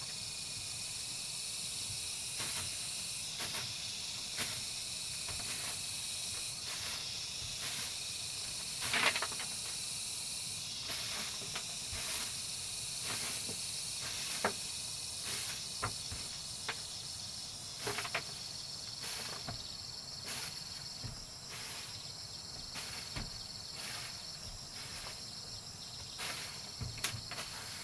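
Steady high-pitched chirring of insects. Scattered light knocks and rustles are heard over it, the most prominent about nine seconds in.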